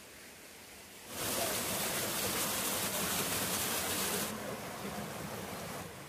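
Water running over rocks in a shallow forest stream, a steady hiss that comes in suddenly about a second in and eases to a softer flow after about three seconds.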